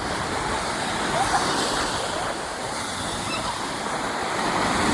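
Andaman Sea surf: waves breaking and washing in, swelling about a second in and again near the end.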